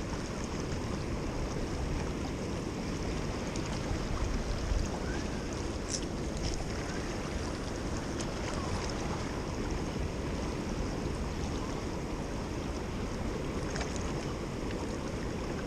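Steady rush of water flowing through a dam spillway, with wind buffeting the microphone.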